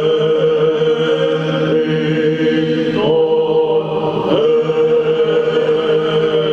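A male cantor singing Greek Orthodox Byzantine chant, a slow melismatic line of long held notes that turns to new pitches about three and four seconds in, over a steady low drone held underneath.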